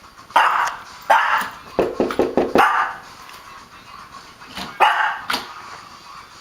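Chihuahua puppy barking in short, sharp yaps, with a quick run of barks about two seconds in and a few more near the end: alarm barking at the door after the doorbell.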